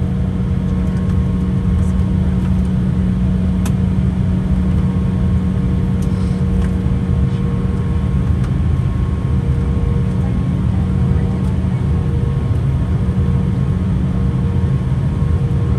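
Steady cabin drone inside an Embraer 175 regional jet taxiing on the ground, its General Electric CF34 engines at low taxi power giving a low hum with a steady whine above it. A few faint clicks sound in the cabin.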